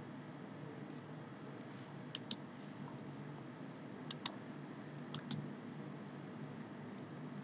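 Computer mouse clicked three times, each click a quick pair of sharp ticks, over a steady low hum.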